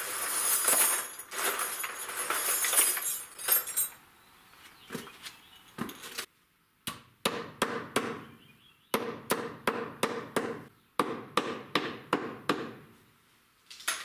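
A handful of old nails rattling and clinking as they are dug out of a box, then, about six seconds in, a run of quick ringing hammer blows, about three a second, straightening bent used nails on a block set on a wooden stump.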